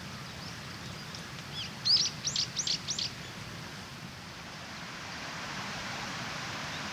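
A bird calling: a quick run of five or six high, arching notes about two seconds in, over a steady background hiss.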